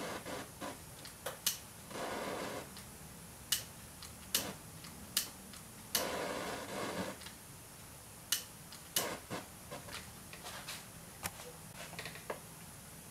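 Small gasoline-vapour flame burning at a torch tip, with irregular sharp clicks and pops about once a second and two short bursts of hiss about two and six seconds in.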